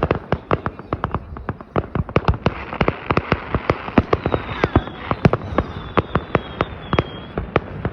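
New Year fireworks going off in a rapid, irregular run of bangs and pops, several a second, over a steady background haze. In the second half a faint high whistle slides slowly down in pitch.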